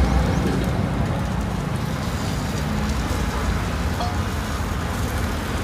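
Steady low rumble of street traffic and the roadside stall, with a light clink of a metal spatula on the griddle about four seconds in.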